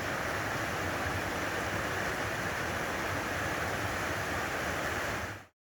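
Steady rushing of fast-flowing creek water, fading out quickly near the end.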